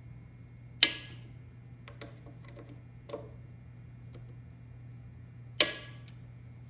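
Sharp metal clicks of a screwdriver working the scope mount screws on a Savage 93R17 rifle: two loud clicks about five seconds apart, with a few lighter ticks between, over a steady low hum.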